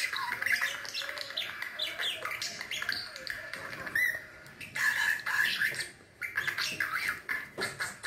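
Budgerigar chattering and warbling: a rapid, unbroken run of chirps and squawks, with a short break about six seconds in.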